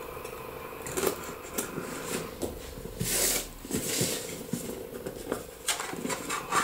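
Rustling, scraping and clicking of stiff cardboard-and-plastic packaging being handled as small adhesive pads at its corners are worked loose, with louder scraping rustles about three and four seconds in.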